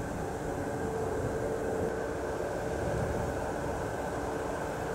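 Steady, distant mechanical drone of open-pit lignite mining machinery, with a constant hum and a fainter high whine over a low rumble.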